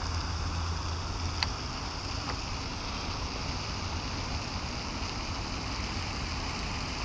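Steady wind and water noise on a head-mounted action camera by a pond with a spraying fountain aerator, with one sharp click about a second and a half in.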